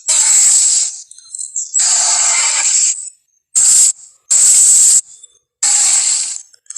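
Film monster sound effect: five harsh, hissing breath-like bursts, each a second or less, separated by short gaps.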